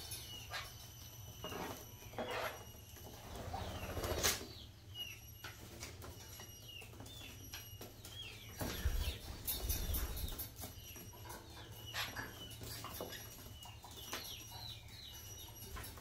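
Small pet parrots chirping in many short, scattered calls, with a couple of louder bursts of wing-flapping and rustling, about four seconds in and again around nine to ten seconds.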